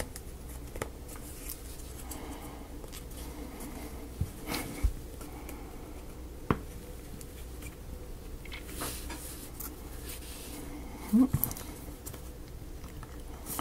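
Scattered light clicks and taps of thin wooden model pieces being handled and pressed together, over a steady low hum, with a brief low voice-like sound about eleven seconds in.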